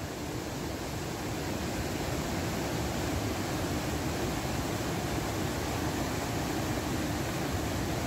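Rapids and a waterfall rushing: a steady, dense noise of white water pouring over rocks, growing a little louder over the first two seconds.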